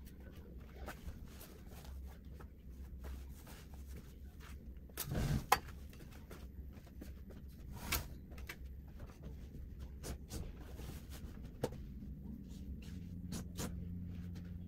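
Bedding being handled as a bed is made: scattered soft rustles and light knocks, with a louder thump about five seconds in, over a steady low room hum.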